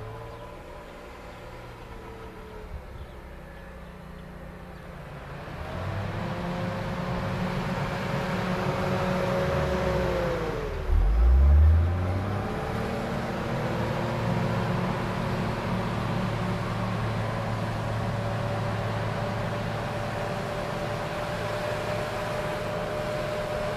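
Volvo L60E wheel loader's diesel engine working on a maize silage clamp: it revs up about five seconds in, its pitch drops briefly near the middle with a loud low thump as the loader reaches the bottom and changes direction, then it runs steady under load as the loader climbs back up the heap.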